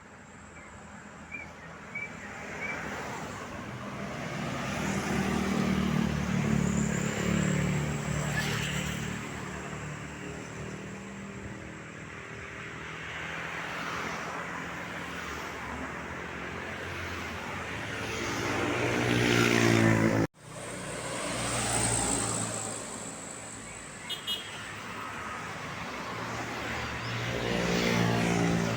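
Road traffic passing close by: the engine sound of passing vehicles swells and fades three times, loudest about a quarter of the way in, just before two-thirds, and near the end. The sound breaks off for an instant about two-thirds through.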